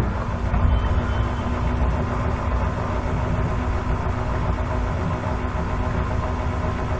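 Steady background hum with a constant low tone and no changes or sudden sounds.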